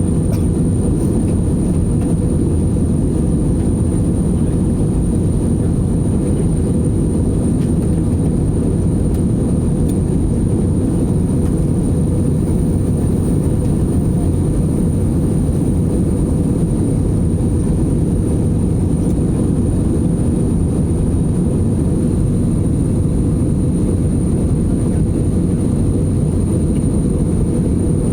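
Steady cabin noise of a jet airliner in flight: an even low rush of engine and airflow noise, with a faint constant high whine above it.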